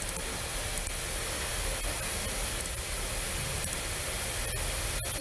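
Steady hiss of the recording's background noise, with a few short faint clicks, a computer mouse being clicked.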